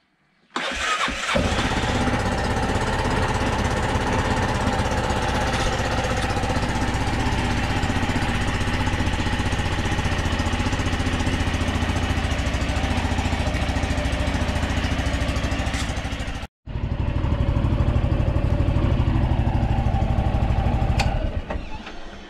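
Aprilia Scarabeo 400's single-cylinder four-stroke engine is started and catches about half a second in, then idles steadily with fresh oil and a new filter in it. The sound is broken once by a split-second cut, idles on, and dies away near the end as the engine is switched off.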